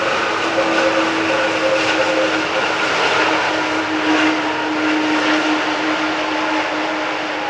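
Boeing 777 jet engines running loud and steady: a broad rush with a steady whine and hum on top, easing off slightly near the end.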